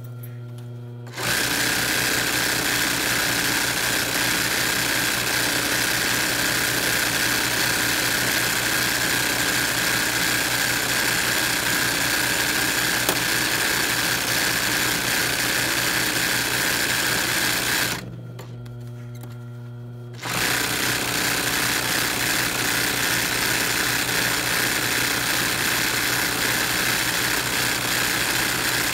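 Royal sewing machine stitching fast and steadily during free-motion machine embroidery of hooped cotton cloth. It stops twice, for about a second at the start and for about two seconds about 18 s in, when only a steady hum is left, then starts stitching again.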